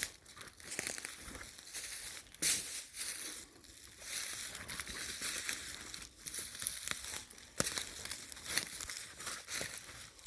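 Footsteps crunching and rustling through dry fallen leaves on the forest floor, a string of uneven crunches as someone walks.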